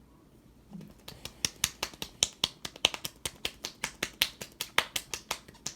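A rapid, uneven series of sharp clicks or taps, about seven or eight a second, starting about a second in and running on for several seconds.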